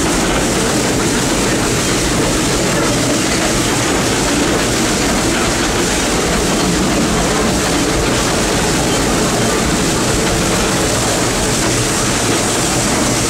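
Steam locomotive running along the line: a steady, loud rush of steam and running-gear noise with no distinct beats.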